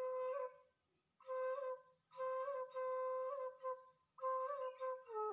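Background music: a solo flute melody. A long held note ends about half a second in, then after a short pause come three short phrases with small ornamental turns.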